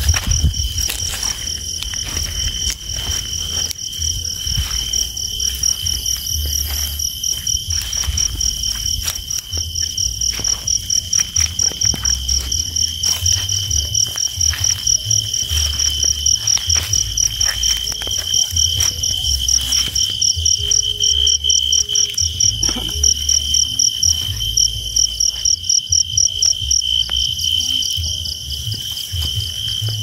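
Crickets chirping in a steady, high-pitched chorus, with scattered close clicks and rustles and an uneven low rumble underneath.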